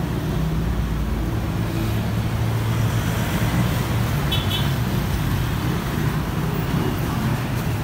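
Steady vehicle and road noise with a continuous low engine hum.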